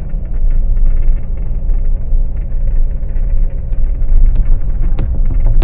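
Steady road and tyre rumble heard inside a moving car's cabin on a rough, unfinished concrete road. About two-thirds of the way in, sharp regular thumps start, about three every two seconds.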